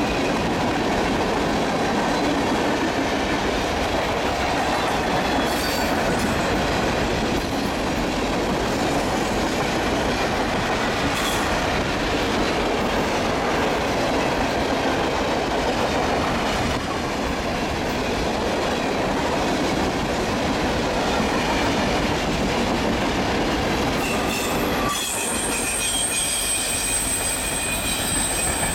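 Loaded freight cars of a long mixed freight train rolling past close by: a steady rumble of steel wheels on rail. Near the end the rumble eases as the last cars go by, and a high, steady wheel squeal rings out.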